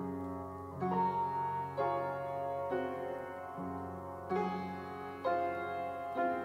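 Gentle background piano music: new notes or chords struck about once a second over a sustained low tone.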